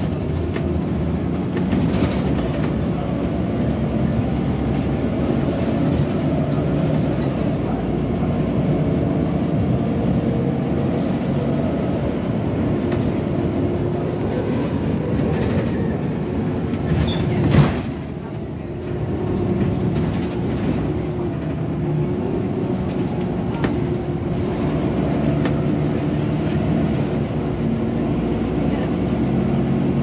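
Volvo B9TL Enviro400 double-decker bus on the move, heard from inside the lower deck: a steady drone of engine and driveline with road noise. A sharp knock comes about seventeen seconds in, and the drone goes briefly quieter just after it.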